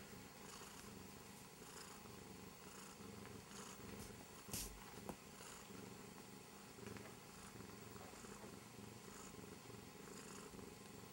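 Korat cat purring faintly and steadily, with one brief knock partway through.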